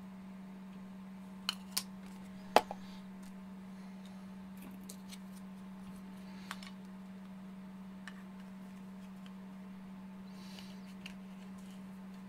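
A few sharp clicks and knocks of hard plastic being handled and set down on a stone countertop as the two halves of a battery-pack case are pressed together, the loudest knock about two and a half seconds in, then a couple of faint ticks. A steady low hum runs underneath.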